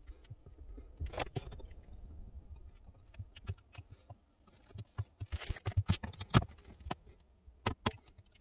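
Scattered clicks, knocks and light rattles of tools and clamps being handled on a workbench: a screwdriver turning a screw through a wooden clamping block, then a bar clamp being set over a glued gunstock joint. The loudest knocks come in a cluster about five to six seconds in.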